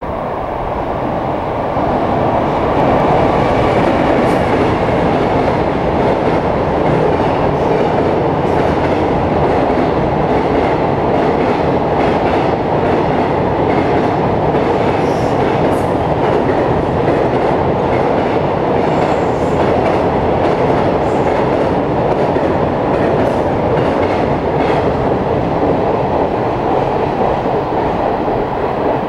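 A JR Freight high-speed freight train running past at speed: a steady rumble of its wagons on the track with scattered clicks of wheels over the rails. It builds over the first two seconds and eases slightly near the end.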